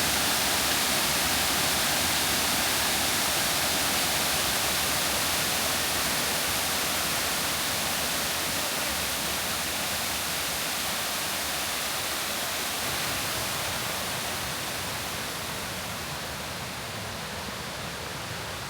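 Kuang Si Falls rushing in a steady roar of water cascading over limestone tiers into pools, growing gradually quieter and duller over the second half.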